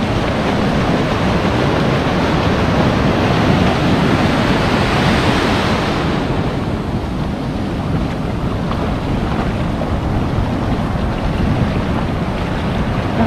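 Ocean surf: waves breaking and foamy wash in the shallows, with wind on the microphone. The wash swells about four seconds in and then eases.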